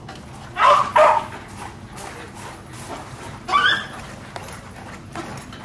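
A dog barking three times: two quick barks close together, then one more a couple of seconds later, with faint hoof clops under them.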